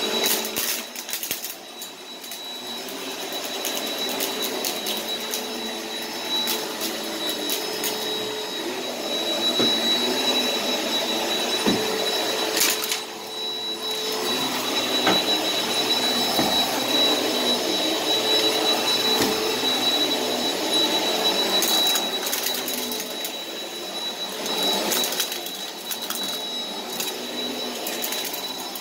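Upright bagless vacuum cleaner running over carpet: a steady motor drone with a constant high whine, broken by bursts of crackling crunch as grit and debris rattle up into it, thickest near the start, a little before halfway and again in the last third.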